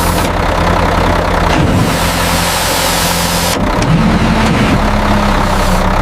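Excavator engine running steadily with a loud hiss over it. About four seconds in it revs up to a higher pitch.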